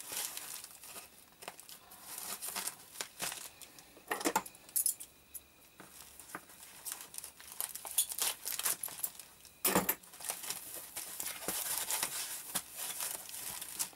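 Polyethylene foam packing sheet and plastic tape crinkling and rustling as a parcel is unwrapped by hand, with scissors cutting through the tape. Irregular crackles throughout, with louder sharp snaps about four seconds in and again near ten seconds.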